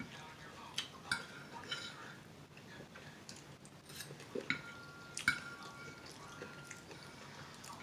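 Scattered faint clicks and light clinks against a plate while someone eats by hand, two of them, about four and five seconds in, making the plate ring briefly.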